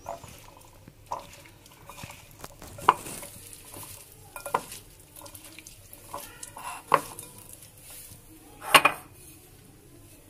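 Hand mixing raw potato strips with egg and flour on a ceramic plate: soft wet squishing broken by several sharp clinks against the plate, the loudest near the end.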